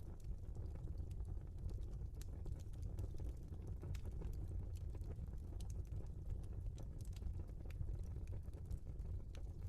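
Wood fire burning in a fireplace, crackling with frequent small irregular pops over a low steady rumble of the flames.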